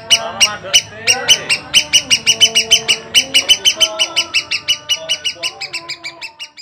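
Cucak kombo bird calling: a fast, even string of short high chirps, about six a second, that fades away near the end.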